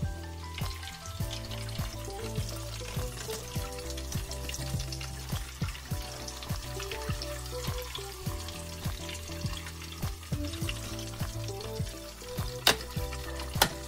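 Hot oil crackling and sizzling with dense, irregular pops as battered corn dogs deep-fry, with two sharper pops near the end. Faint background music plays underneath.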